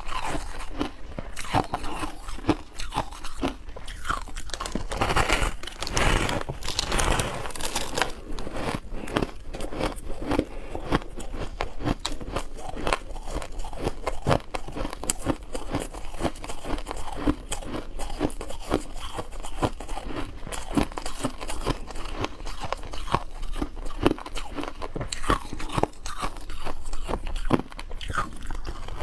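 Close-up crunching of frosty, snow-like ice being bitten and chewed, a dense run of irregular crisp crunches that keeps on without pause.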